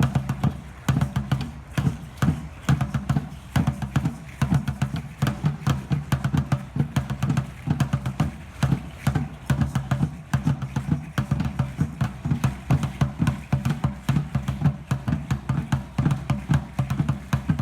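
Danza Azteca drumming: a large drum beating a fast, steady rhythm, with sharp, clattering percussion on the beats.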